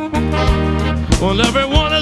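Background music: an instrumental break in a pop song, a lead instrument playing gliding phrases over the band with a steady beat.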